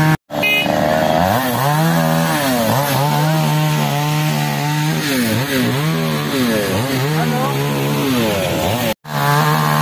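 Chainsaw cutting into a fallen tree, its engine pitch sagging under load and climbing back again and again, about once a second. The sound cuts out briefly twice, near the start and near the end.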